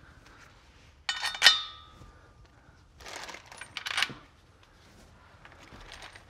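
Metal clinks of steel bolts being fed through a rubber driveshaft flex disc and its flange: a sharp ringing clink about a second and a half in, then a stretch of scraping and clicking around three to four seconds in.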